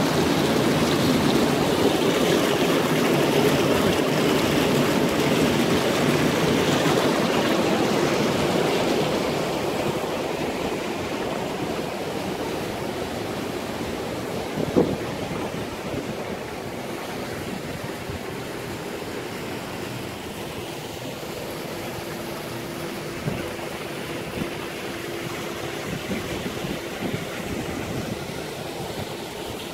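Hot tub jets churning the water with a loud bubbling rush that eases off after about nine seconds, leaving a lower steady rush of water, with the pool's rock waterfall pouring near the end. A single sharp knock about halfway through and a faint steady hum in the later part.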